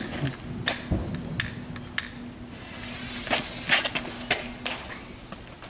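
A lit firework fuse hisses for about two seconds near the middle, amid scattered sharp clicks and taps. There is no explosion.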